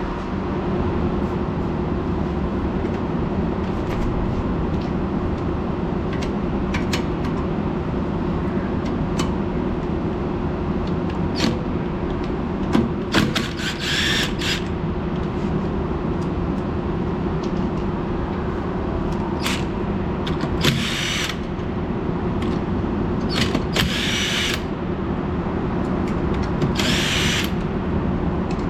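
Impact wrench run in several short bursts to take the wheel nuts off an Acura RSX's rear wheel, with scattered sharp clicks of tools and metal in between, over a steady low hum. The nuts come off easily because they were loose, which the owner takes as the cause of the ticking noise from that wheel.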